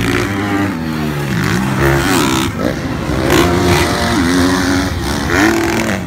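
Several motocross bike engines racing on a dirt track, revving hard and dropping back as the riders work the throttle and shift, so the pitch keeps rising and falling with more than one engine heard at once.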